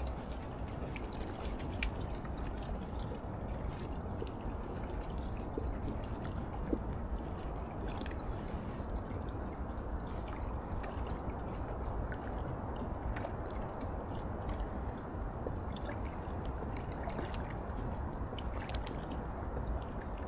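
River water lapping and gurgling against a rocky bank, a steady wash with a few faint ticks scattered through it.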